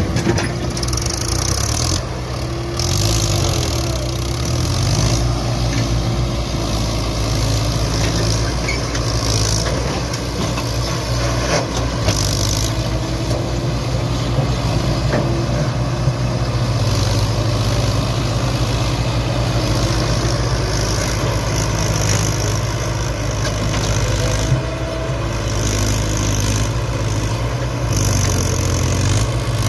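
Diesel engines of a JCB 3DX backhoe loader and a tractor running steadily, the engine note shifting a little now and then.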